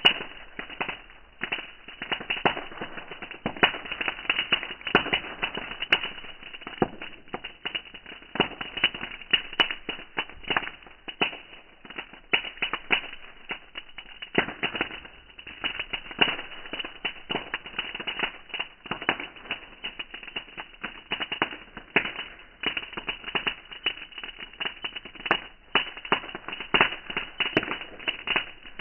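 Bonfire crackling, a dense run of irregular sharp snaps and pops.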